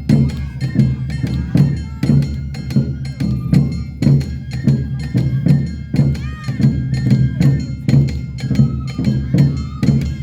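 Awa odori festival music: taiko drums and a struck kane hand gong keep a steady, driving two-beat rhythm, about two to three strikes a second, with the gong ringing on. A high melody line sounds over the beat.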